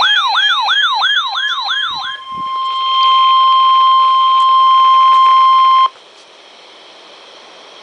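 Weather radio sounding an alert: a fast warbling siren with falling sweeps about four times a second, then a louder, steady 1050-hertz NOAA Weather Radio warning alarm tone that cuts off suddenly, leaving faint radio hiss. The tone signals that a warning, here a flood warning, is about to be read.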